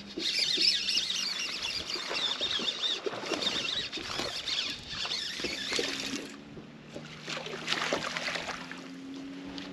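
Water splashing and trickling as a hooked bass is fought to the side of a bass boat, with a steady low hum underneath from the boat's bow-mounted trolling motor.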